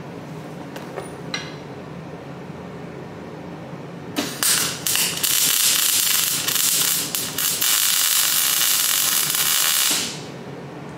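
Welding arc crackling and hissing as steel shock mounts are tack-welded: a few short sputtering starts about four seconds in, then one steady weld of about five seconds that cuts off near the end.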